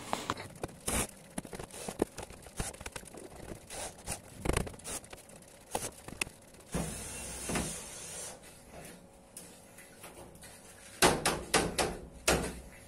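Plywood sheets knocking and scraping against a light-gauge steel frame as they are handled into place: scattered knocks and clatter, a rubbing stretch a little past the middle, and a quick run of knocks near the end.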